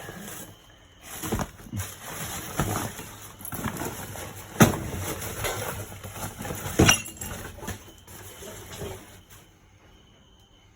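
Rummaging through discarded household items in a dumpster: hard objects knocking and clinking together over steady rustling, with four sharp knocks, the loudest about four and a half seconds in. The handling stops a little before the end.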